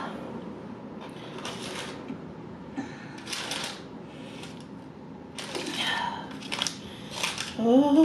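Paper food wrappers and cardboard takeout boxes crinkling and rustling in several bursts as food is handled and unpacked, with a few small clicks. Near the end comes a short rising hum of a voice.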